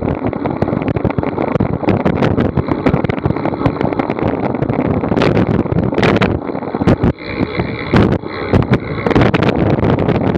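Wind buffeting a Garmin VIRB action camera's microphone at riding speed of about 11 to 12 mph: a loud, uneven rushing broken by many short gusts and knocks, dipping briefly about seven seconds in.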